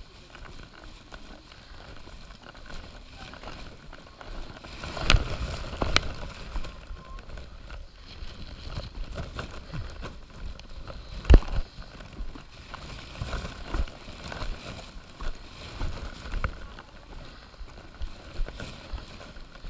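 Footsteps on wet rock and stone steps with the rubbing and bumping of a handheld camera as the climber walks. There are irregular soft thuds about once a second, and a few sharp knocks: about five and six seconds in, and the loudest near eleven seconds.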